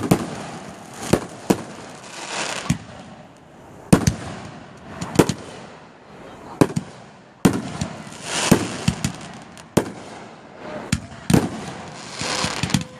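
Fireworks display: aerial shells bursting in a string of sharp bangs, a dozen or so spaced about a second apart. Stretches of crackling hiss from the bursts fill the gaps between bangs.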